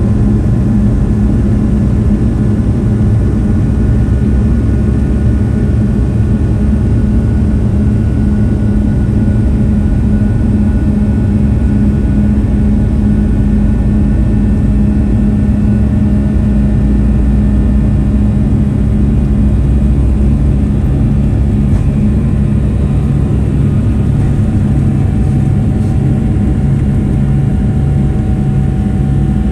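Boeing 757-200 engines and airframe heard from inside the cabin: a loud, steady drone with a low hum. About three-quarters of the way through, the pitch of the hum shifts and a faint higher tone comes in.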